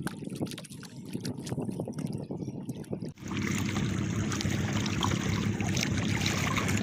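Small fishing boat on the water: splashing and knocking for about three seconds, then a sudden switch to a louder, steady hum and hiss like a boat's motor running.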